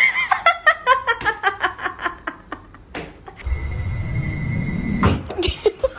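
Background music: a quick run of short, evenly spaced notes. About three and a half seconds in, it gives way to a steady held high tone over a low rumble for about a second and a half, then the short notes return.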